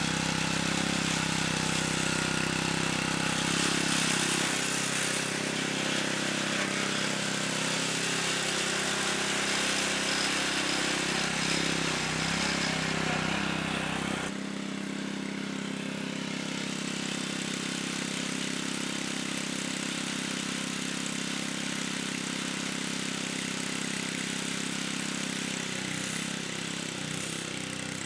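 Small gasoline lawnmower engine on a homemade robotic mower running steadily. Halfway through the sound changes abruptly and becomes a little quieter, then runs steadily again.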